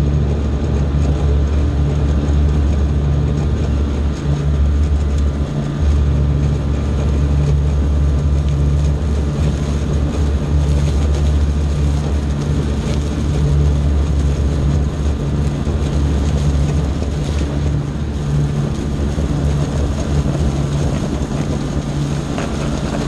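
Zero-turn riding mower engine running steadily at mowing speed, a loud, even drone.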